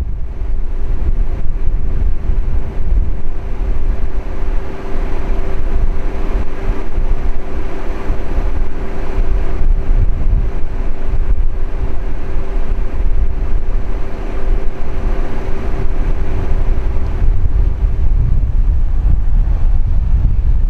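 Strong wind buffeting the microphone, a heavy low rumbling noise, with a steady hum under it that fades out near the end.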